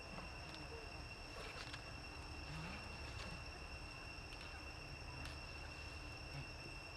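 Insects chirring in a steady, high-pitched drone, with a few faint clicks scattered through it.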